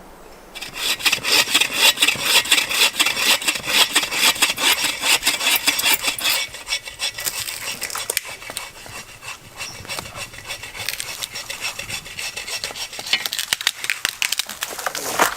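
Hand saw cutting through a tree with fast back-and-forth strokes, starting about half a second in. The strokes ease off through the middle, grow harder again near the end, then stop.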